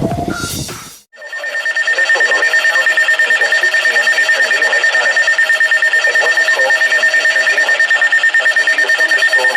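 Weather radio receiver sounding its alert alarm: a loud electronic alarm with a steady high tone and a lower one, pulsing rapidly and evenly, starting about a second in after a brief drop. It signals an incoming warning, here a severe thunderstorm warning.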